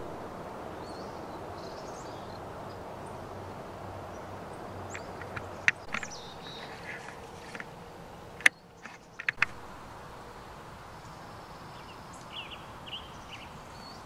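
Garden ambience: a steady background hiss with scattered short bird calls, broken by a few sharp clicks, one a little under six seconds in and a cluster around eight and a half to nine and a half seconds.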